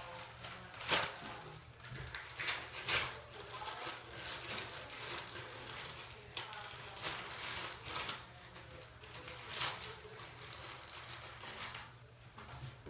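Thin plastic bag crinkling and rustling in irregular bursts as slime is pulled out of it by hand, with a couple of sharper crackles about a second and three seconds in.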